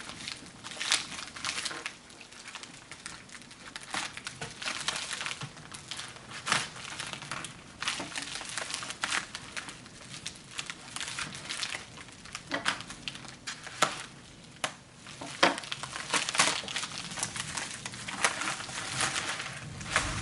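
Plastic shipping mailer and packing wrap crinkling and rustling as hands handle and open it, with irregular sharp crackles throughout.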